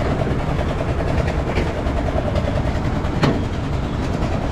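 Fairground Ferris wheel's drive machinery running with a steady rumble and a fast, even rhythmic clatter, with one sharp click about three seconds in.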